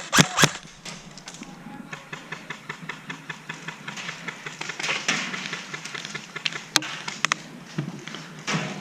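Airsoft guns firing. A few sharp cracks at the start, then a long rapid run of evenly spaced shots, then a few single shots near the end.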